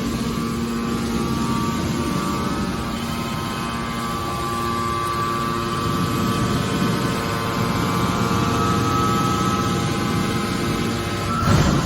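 Hydraulic metal press baler running: a steady motor and pump hum with a high whine, then a loud clunk near the end.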